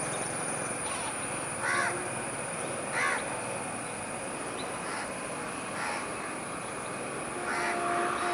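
Crows cawing: about five short caws spaced a second or two apart, over a steady background hiss.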